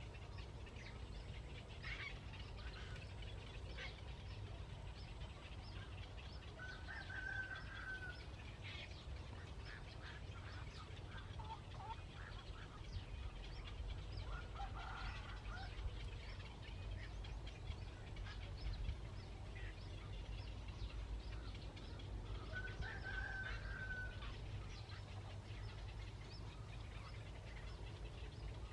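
Birds calling: three longer honking calls about eight seconds apart, with short chirps scattered between them over a steady low rumble.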